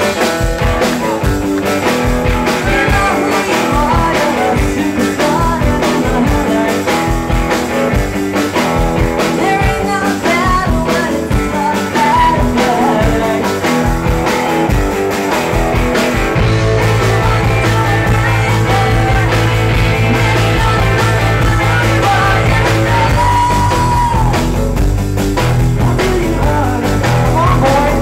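Live rock band playing electric guitar, electric bass and drums, with a woman singing. About sixteen seconds in, the bass settles into long held low notes under the guitar.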